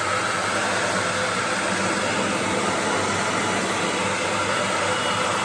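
Hand-held hair dryer running steadily at full blast, a loud, even rush of air over a low motor hum, melting built-up ice in a freezer.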